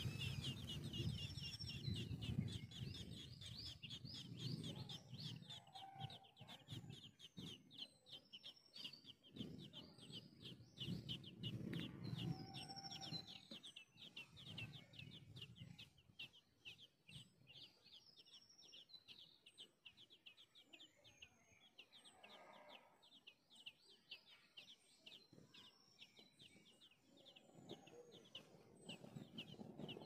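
Thrush nestlings begging for food: a rapid, almost continuous run of short high chirps that thins out for a few seconds past the middle. Lower, louder calls sound underneath, mostly in the first half.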